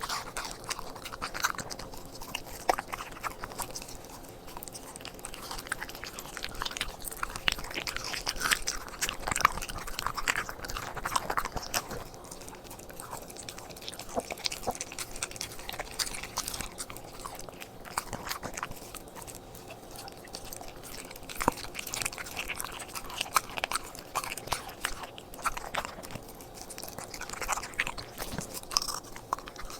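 A corgi chewing and crunching its raw meal: irregular, sharp crunches and wet chewing, with no steady rhythm.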